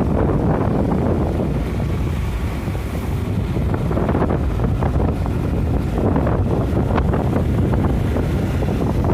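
Wind buffeting the microphone while riding along on a motorcycle: a steady, heavy low rumble.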